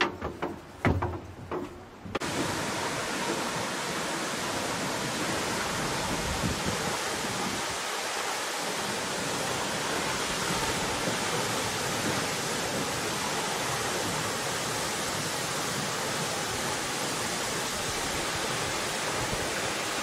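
Steady rushing noise of a waterfall. It cuts in suddenly about two seconds in, after a few sharp knocks.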